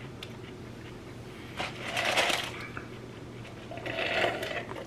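Drink sipped through a straw from a paper fountain-drink cup: two short noisy sips, about two seconds in and again near the end.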